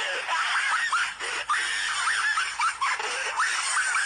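Dubbed anime character laughing hard, a fast run of laughs whose pitch swoops up and down, over a steady hiss.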